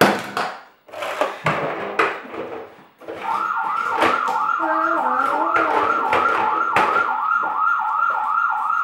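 Battery toy fire engine's electronic siren, switched on about three seconds in: a loud, fast warble repeating about four times a second. Before it, a few knocks and clatter of toys on the wooden table.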